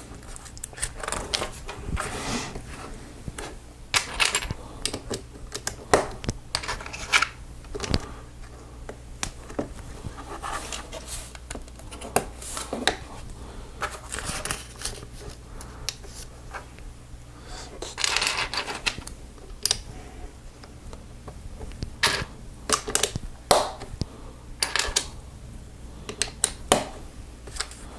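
Plastic Lego bricks clicking and clattering as they are handled and pressed together: irregular sharp clicks throughout, with longer rattles of pieces about four seconds in and again around eighteen seconds.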